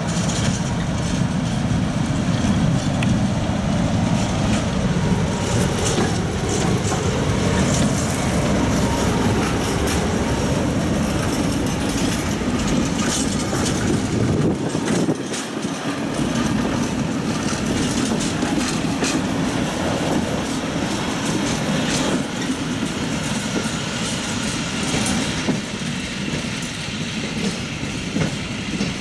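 A BB 63000-class diesel locomotive runs with a short train of open tourist cars rolling slowly past. The engine drones steadily while the wheels click and knock over the rail joints and points.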